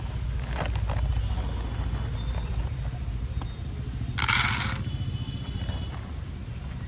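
Dry dog kibble poured into a plastic bowl about four seconds in, a brief noisy rush, over a steady low rumble.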